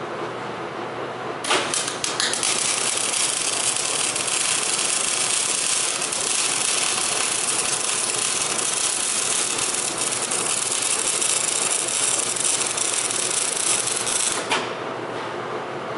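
MIG welder arc running on a steel frame: a steady crackling hiss that strikes about a second and a half in and cuts off about a second and a half before the end.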